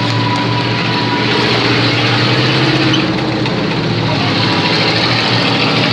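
Heavy engine of a WWII-era armoured military vehicle running steadily as it drives slowly past, a low, even engine note with little change in speed.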